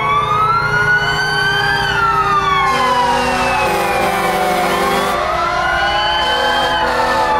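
Several fire truck sirens wailing at once, their pitches rising and falling out of step with each other, with a steady deep horn sounding for a couple of seconds in the middle.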